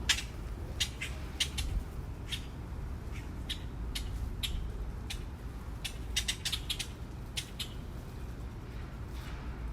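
Magpies squawking: short, harsh calls in irregular bursts and clusters, the loudest right at the start, over a steady low background rumble.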